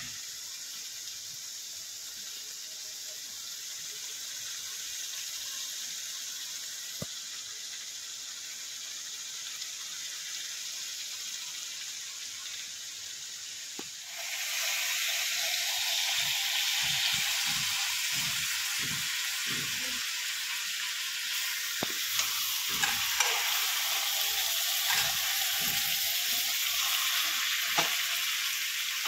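Food frying in oil in a pan: a steady sizzle that suddenly gets louder and fuller about halfway through. In the second half a spatula knocks and scrapes in the pan as the food is stirred.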